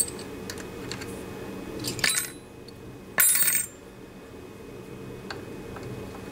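Metal hand tools clinking and clattering, with scattered light clicks and two brief ringing clatters, about two seconds in and just after three seconds, over a steady low hum.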